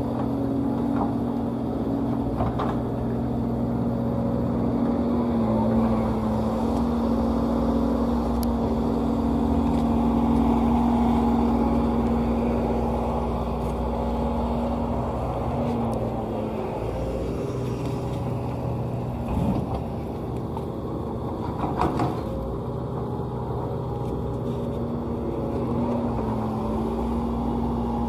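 Sumitomo hydraulic excavator's diesel engine running under load as it digs and loads clay into a dump truck, its note shifting in pitch a few times as the hydraulics work. Two short knocks come about two thirds of the way through.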